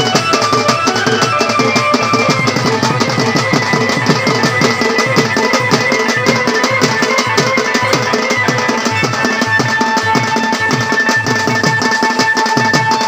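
Loud music with fast, dense drumming and held melody notes over it, accompanying a folk pot dance.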